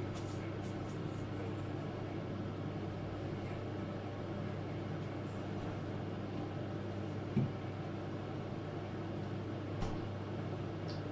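A steady low hum with a short knock about seven seconds in and a fainter one near ten seconds.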